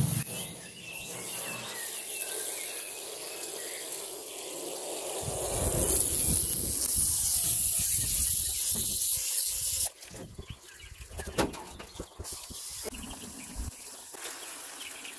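Garden hose spray nozzle jetting water through a diesel particulate filter into a foam-filled tub, flushing soot out of it. The spray hiss grows louder, cuts off suddenly about ten seconds in, and leaves water trickling out of the filter.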